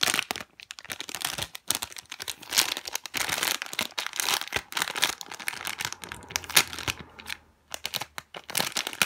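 Plastic packaging crinkling and crackling in irregular bursts as it is handled, typical of a squishy being taken out of its plastic bag.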